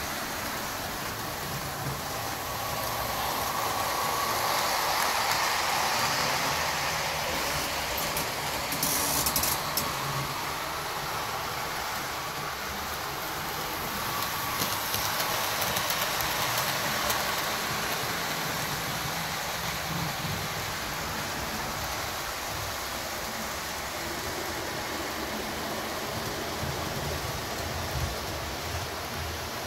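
HO scale model trains running on the layout's track: a steady whir of small motors and wheels on rail, with no added locomotive sound effects. It grows louder twice, with a few clicks about nine seconds in.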